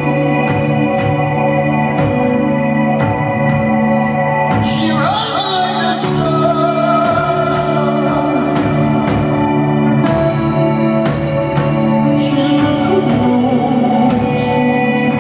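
Live band music recorded from the audience: a male lead vocal singing held, wavering notes over sustained organ-like keyboard chords and electric guitar, with a steady beat.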